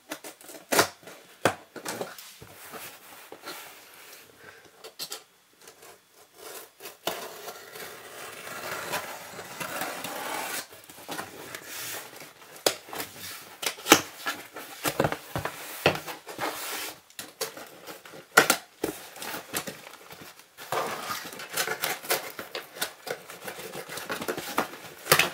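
Cardboard shipping box being opened by hand: irregular scratchy rasping and tearing of tape and cardboard, with many sharp clicks and knocks as the flaps and packing are handled.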